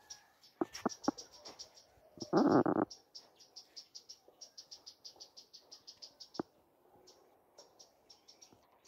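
An insect chirps in fast, evenly spaced high-pitched pulses, about nine a second, in trains broken by short pauses. About two and a half seconds in, a short, louder burst of rustling noise covers it, and a few sharp clicks come around a second in.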